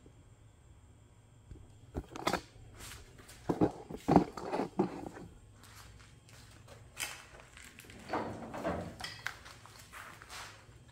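Scattered knocks, clunks and footsteps of someone moving about and handling tools in a garage, with short clusters of taps about two, four and eight seconds in.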